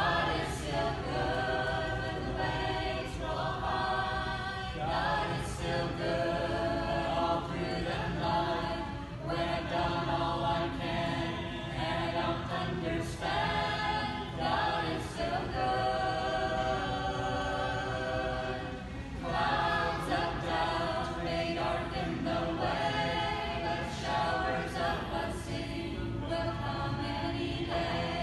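A group of amateur voices singing a gospel hymn together, unaccompanied, in continuous phrases with short breaks between lines.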